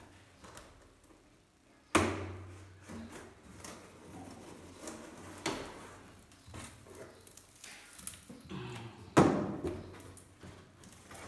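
Cardboard battery carton being opened by hand: flaps and packing scraping and rustling, with two sharp thumps, one about two seconds in and a louder one about nine seconds in.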